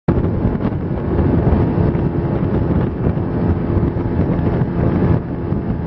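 Outboard motor of a small open boat running steadily under way, with wind buffeting the microphone.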